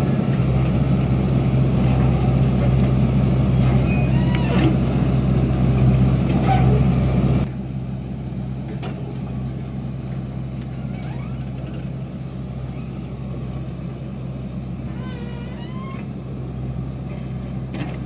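Diesel engine of a tractor-mounted backhoe running steadily while it digs a trench, with a deep steady hum. About seven seconds in the sound drops abruptly to a quieter level.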